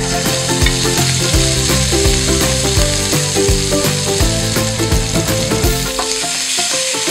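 Sliced pork liver sizzling in hot oil in a frying pan as it is tipped in and stirred with a wooden spoon, a loud, steady frying hiss. Background music plays underneath.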